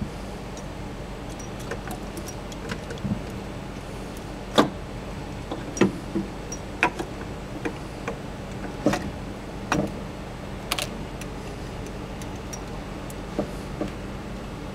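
Scattered sharp clicks and knocks of metal parts as the replacement F1 gearbox pump motor is handled and fitted back onto its pump head, over a steady low hum.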